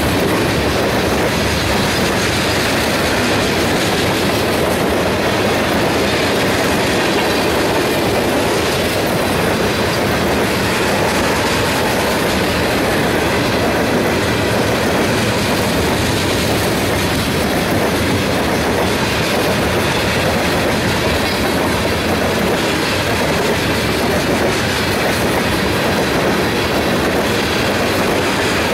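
Freight train tank cars rolling steadily past on the rails at close range, their wheels clacking over the track.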